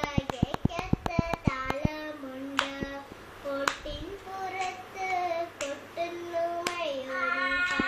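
Voices singing a Malayalam poem as a melodic chant, with quick hand claps keeping time through the first two seconds and a couple of single claps after.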